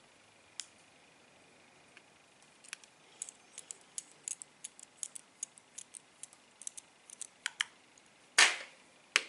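Small metal clicks, three or four a second, from a precision screwdriver driving the iPhone 5's two bottom pentalobe screws back in, then a louder knock near the end.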